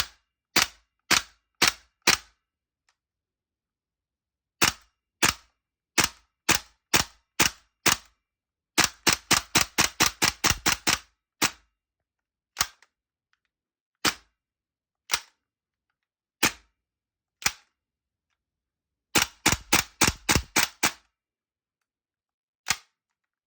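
Tokyo Marui HK45 gas blowback airsoft pistol firing, each shot a sharp crack. It fires a few single shots, then a steady string at about two a second. A fast burst of a dozen or so shots follows, then slow single shots, another rapid burst, and one last shot.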